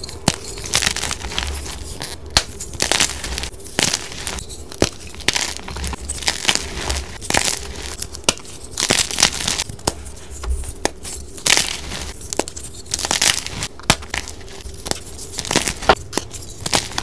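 Blocks of dyed gym chalk crushed and squeezed between the fingers, crunching and crumbling with rapid dry crackles and snaps, played back sped up.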